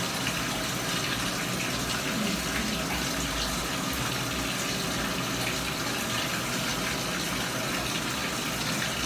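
Water running steadily, an even hiss that cuts off abruptly near the end.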